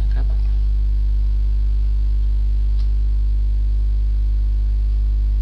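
Steady electrical mains hum on the recording, a constant low buzz with a faint click about three seconds in.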